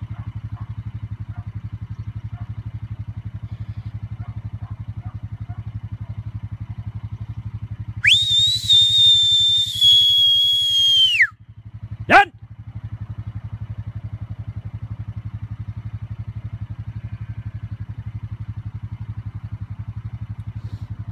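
A whistle blown as a herding command to a sheepdog: one long, steady high note of about three seconds that drops away at the end, then a short whistle sliding sharply down about a second later. A steady low rumble runs underneath throughout.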